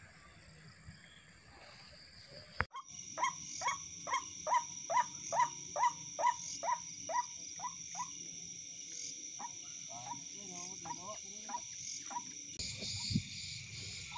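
Night-time insect chorus with a steady high-pitched trill, joined a few seconds in by an animal calling in a regular series of short notes, about two a second, for several seconds, then a few looser, wavering calls.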